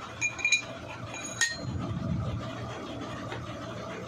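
Steel gearbox gears knocking against each other as they are handled: three quick metallic clinks with a short ring near the start, a sharper clink about a second and a half in, then a duller low scrape of metal on metal.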